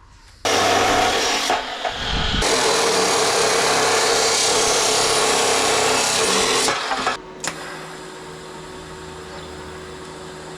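Power tool working steel box section: a loud, harsh metal-on-metal noise starts about half a second in, dips briefly near 2 s and stops about 7 s in. A much quieter steady hum with a few held tones follows.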